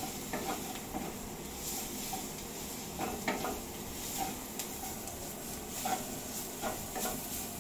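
Wooden spatula stirring and scraping onions and spice powders around a nonstick kadhai, with irregular clicks and knocks against the pan about once a second over a faint steady sizzle of the frying masala.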